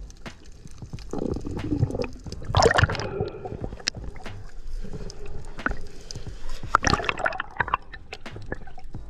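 Water sloshing and gurgling close to the microphone, with scattered knocks and two louder surges, about two and a half and seven seconds in.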